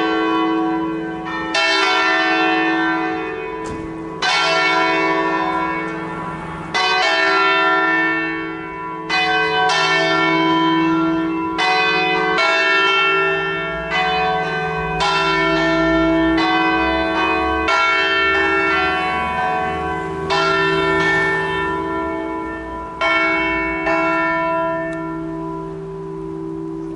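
A peal of five swinging church bells (Ottolina-cast, tenor in E3) rung together by electric drive, their clappers striking every second or two over a continuous humming ring. The strikes stop about 25 seconds in and the ringing dies away.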